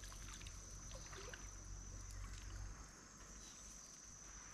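Faint trickle of stream water, with a thin steady high-pitched tone alongside it.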